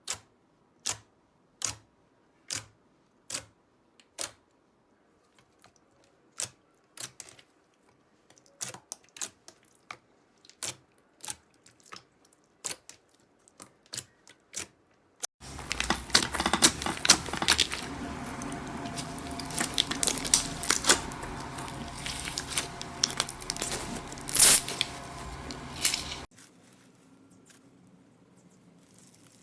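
Slime being handled close to the microphone: sharp clicks at first, about one a second and then quicker and irregular, then a loud stretch of dense crackling and popping that cuts off suddenly.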